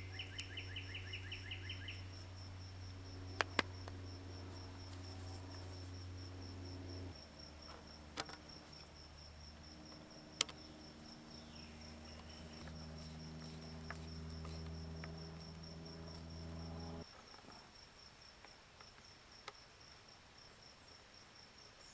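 Insects chirping in a fast, even, high-pitched pulse throughout. Under it, low held tones that shift twice and cut off about 17 seconds in, a short bird trill at the start, and a few sharp clicks.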